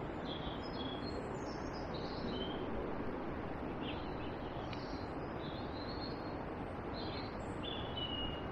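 A small songbird singing short, high, varied phrases over a steady outdoor rush of background noise.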